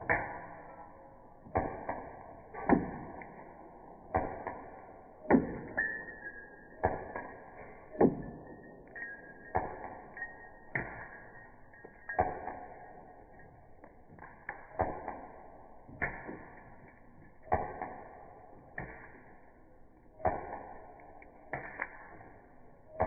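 Repeated shots from a Glock 19X BB pistol, each a sharp report with a short decaying tail, about one every second and a half.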